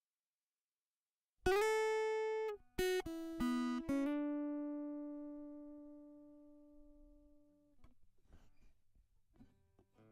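Acoustic guitar picking a few single notes, then letting the last, lower note ring and fade away over several seconds.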